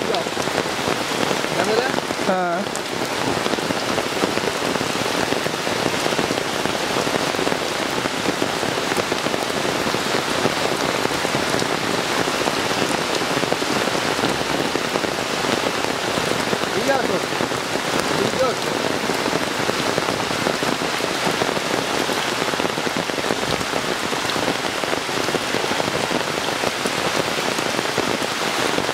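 Heavy rain pouring onto open floodwater, a steady dense hiss of drops striking the water surface.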